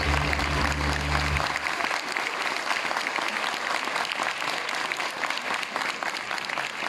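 Audience applauding steadily, with the music's last held low notes ending about a second and a half in.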